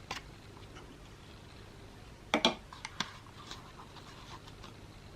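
A few light clicks and knocks from the defibrillator's printer module being handled and turned over. The loudest cluster comes about two and a half seconds in.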